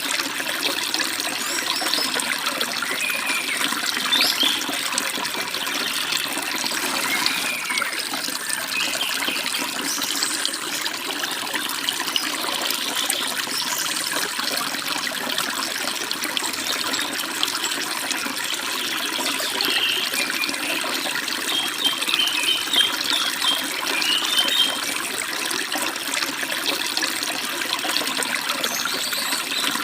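Steady rush and babble of a forest stream over small waterfalls, with birds chirping now and then above it and a quick run of chirps about two-thirds of the way through.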